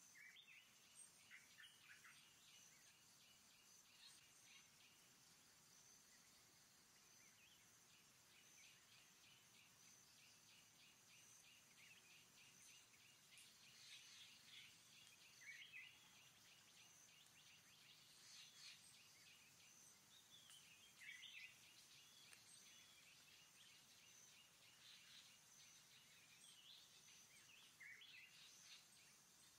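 Faint forest ambience: birds chirping now and then over a steady high-pitched insect drone and rapid trilling.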